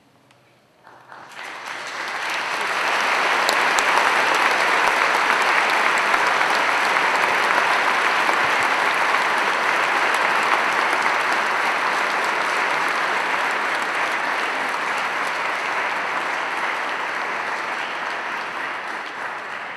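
A large congregation applauding. The clapping starts about a second in, builds over a couple of seconds, holds steady, and eases slightly near the end.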